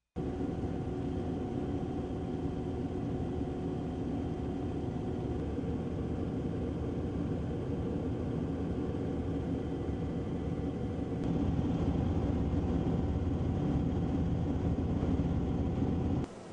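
Steady engine rumble with a constant hum running through it. About eleven seconds in the sound shifts and gets louder, then it drops away just before the end.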